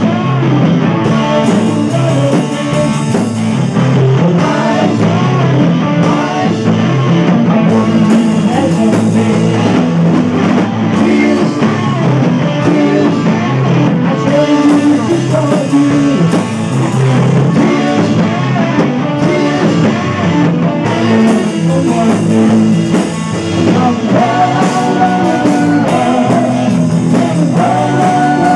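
Live rock band playing loudly: electric guitars, a violin-shaped electric bass and drums, with a singer at the microphone.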